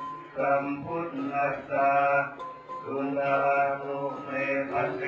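Buddhist monks chanting in a low, droning unison, in held phrases of about a second with short breaks between them.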